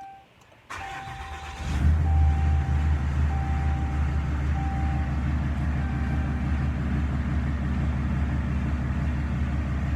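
2012 Ram 3500's 6.7-litre Cummins turbo-diesel inline-six started with a push-start button: the starter cranks for about a second, then the engine catches and settles into a steady diesel idle. A dashboard chime beeps repeatedly for the first few seconds.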